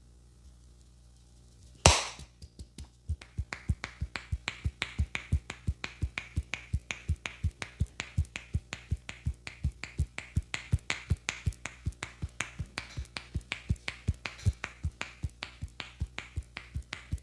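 Champi head massage: the barber's hands slapping and tapping rhythmically on the head, a steady patter of sharp strokes at about four a second. It starts about three seconds in, after one louder sharp smack.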